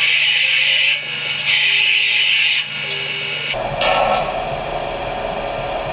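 Combination belt and disc sander running, with a metal part pressed against the sanding belt in two grinding passes, each about a second long, to grind off zinc galvanizing before welding. About three and a half seconds in, the motor hum gives way to a steady rushing noise, with one more short burst.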